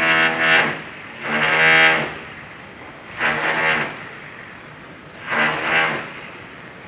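Electric rotary hammer (martelete) running in short bursts, four times, each under a second, with a buzzing, pitched hammering tone.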